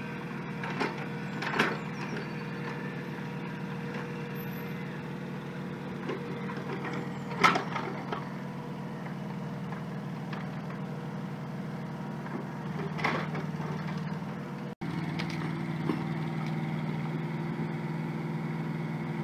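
Micro excavator's small diesel engine running steadily, with a few knocks and scrapes from the bucket digging into soil, the loudest about halfway through.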